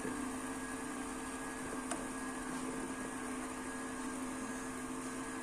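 Steady hum and whir from a 144 MHz power amplifier unit's cooling fans and power supply, idling on receive with no RF output. A light click about two seconds in.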